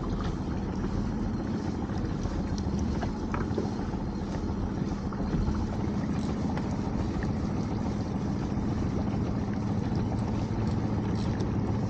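A small fishing boat's engine idling with a steady low hum, with wind and water noise over it and a few faint ticks.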